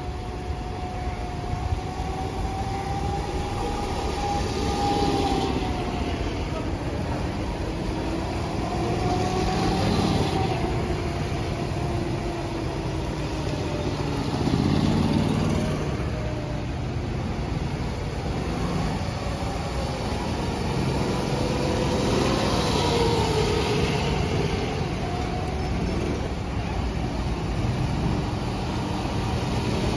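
Go-kart engines running round a wet track, their pitch rising and falling as karts come past and move away. One kart passes close about halfway through, the loudest moment.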